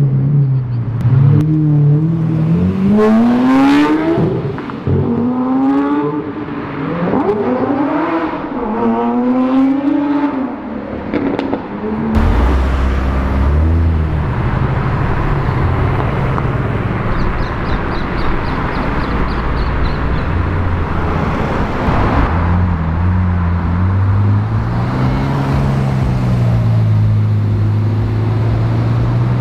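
Sports car engines revving: in the first twelve seconds the pitch rises and falls sharply several times in quick blips. After that comes a steadier, lower engine sound of cars driving by, ending in a rising rev.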